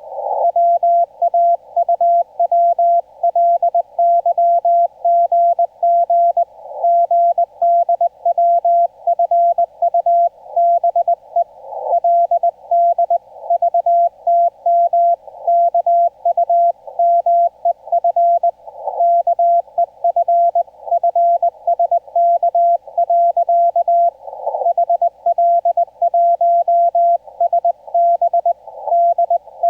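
Morse code (CW) tone from an HF amateur radio transceiver, sent in Korean Morse code. A single steady pitch is keyed on and off in dots and dashes, with a longer pause every five or six seconds. A narrow band of receiver hiss swells up in the gaps.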